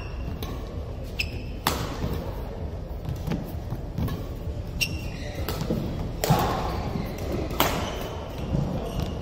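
Badminton singles rally: sharp cracks of rackets striking the shuttlecock, the loudest about one and a half, six and seven and a half seconds in, mixed with short high squeaks of court shoes on the floor.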